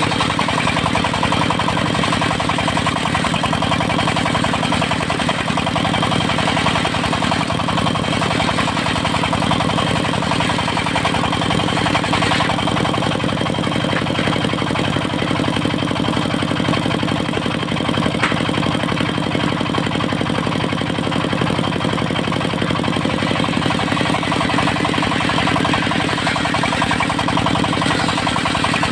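Engine of a mobile circular sawmill running steadily at an even speed throughout.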